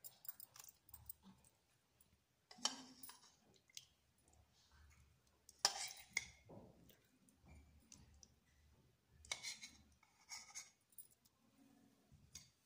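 Faint, scattered clicks and clinks of a spoon and plastic bowl against a steel pot as cut jelly cubes are added to custard, with a few slightly louder taps.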